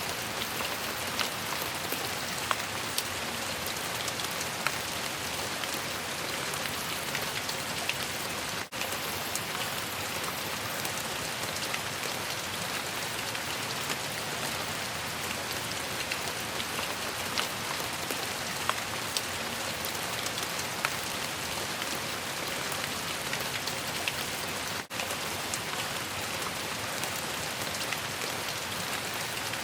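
Steady rain falling, an even hiss with many sharp individual drops tapping through it. The sound drops out for an instant twice, about nine seconds in and again near twenty-five seconds.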